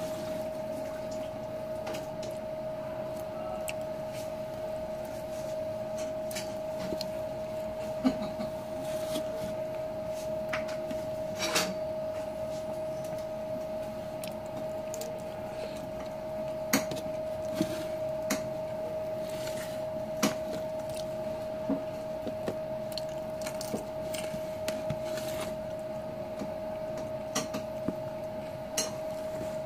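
A person eating with his hands from a plate: scattered sharp clicks of chewing, mouth sounds and fingers against the plate, over a constant steady tone.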